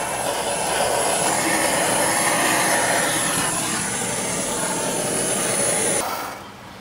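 Handheld butane blowtorch (Hotery BTS-8022 on a canister of butane) burning with a steady hiss and a thin high whistle while its flame chars the skin of fish collars. The flame is shut off about six seconds in and the hiss stops abruptly.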